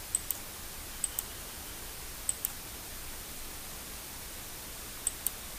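Computer mouse clicking: four quick double-clicks at uneven intervals, over a steady hiss.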